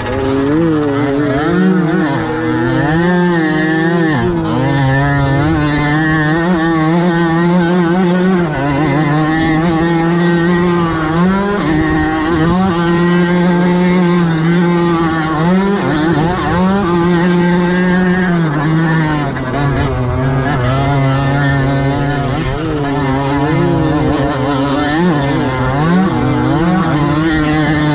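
Small two-stroke moped engine ridden hard on a dirt track. It revs up and down, its pitch repeatedly climbing and dropping through gear changes and throttle lifts.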